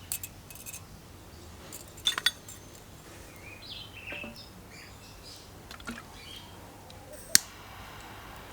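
Sharp clicks, a quick pair about two seconds in and a loud single one near the end, with birds chirping faintly between them.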